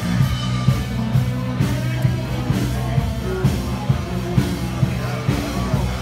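Rock music with a steady drum beat, about two beats a second, over a sustained bass line.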